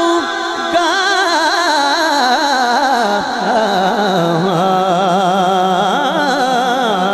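Male naat reciter singing a long, wordless ornamented melisma into a microphone, the voice wavering and sliding down in pitch about two to three seconds in, over a steady low drone.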